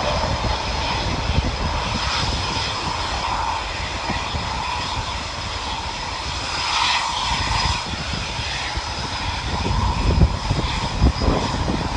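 Jet engines of a Eurofighter Typhoon, its twin Eurojet EJ200 turbofans, at takeoff power: a continuous jet roar with a deep rumble and steady whining tones on top.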